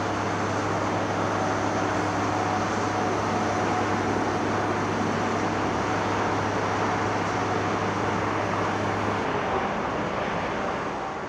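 Heavy diesel construction machinery running steadily, with a low steady hum that drops out about nine seconds in; the sound begins to fade near the end.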